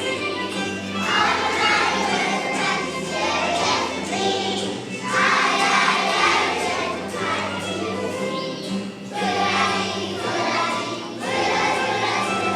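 A group of young children singing a song together over an instrumental accompaniment with a steady bass line.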